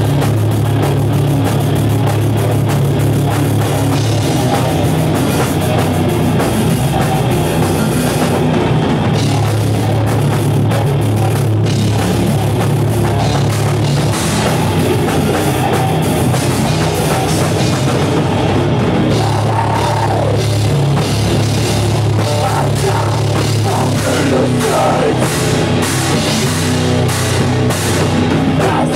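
Live heavy metal band playing loud: distorted guitars and bass holding a heavy low drone over fast, dense drum-kit hits.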